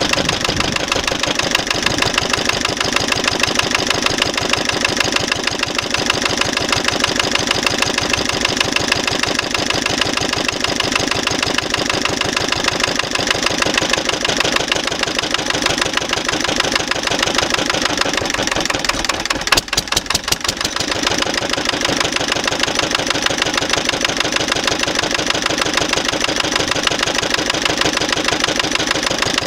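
1956 Lister LD1 single-cylinder diesel engine running slowly at about 750 rpm, half its rated speed, in a steady rapid beat of firing strokes, with a banging that comes from the compressor pulley. About two-thirds through the beat briefly dips, with a few sharp clicks.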